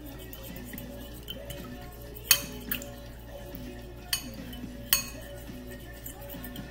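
A metal fork clinking against a bowl while stirring honey into water: a few sharp clinks, the loudest about two seconds in, over soft background music.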